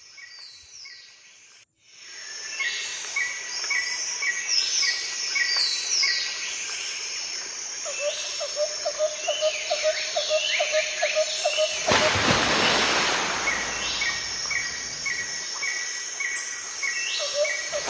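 Chorus of insects and birds calling: many short chirps repeating over and over, with a lower pulsed call at times. It starts about two seconds in, and about twelve seconds in a rush of noise covers it for some three seconds.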